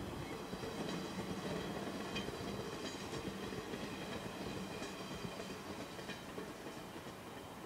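Passenger train passing at a distance: a steady low rumble and hum, with the wheels clicking over rail joints several times, fading slowly over the last few seconds.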